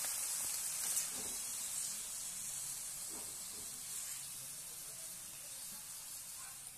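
Pechay (bok choy) sizzling in a hot wok, a steady high hiss that slowly dies down as the greens wilt, with a light tap of the tongs about a second in.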